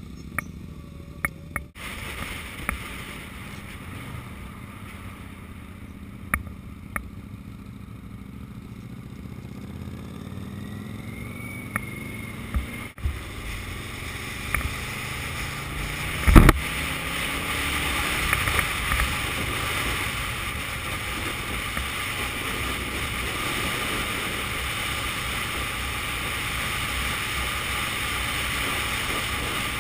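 Motorcycle ride heard from a handlebar-mounted camera. The engine climbs in pitch as it accelerates through the first half. From about halfway, wind rushing over the microphone takes over as a steady, louder noise, and there is one sharp knock shortly after it sets in.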